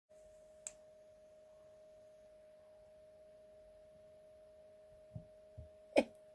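Faint steady electrical hum at one mid pitch, with a soft click about a second in, two low thumps near the end and a sharper click just before the end.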